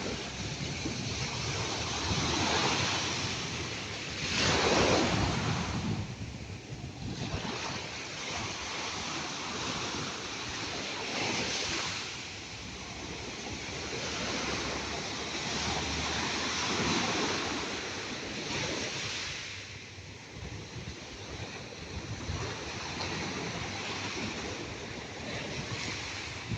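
Ocean waves breaking and washing ashore in a steady hiss that swells and ebbs with each wave. The biggest surge comes about five seconds in.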